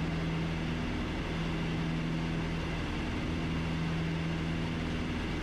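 Cabin drone of a Piper PA-30B Twin Comanche's twin four-cylinder Lycoming engines and propellers in flight, a steady hum whose pitch-tone swells and fades every couple of seconds as the two engines beat against each other.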